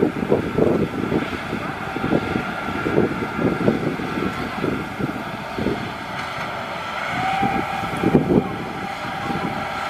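Maxxi HD NDR 85 rice combine harvester running as it travels on its tracks across the stubble, threshing gear still turning and spitting out straw, with a steady machine whine over an uneven low rumble.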